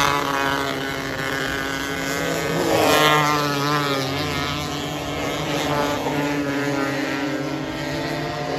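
Several 270 micro sprint cars running laps on a dirt oval, their engines revving at high pitch; one passes close at the start and another about three seconds in, its pitch dropping as it goes by, with more engines running on around the track.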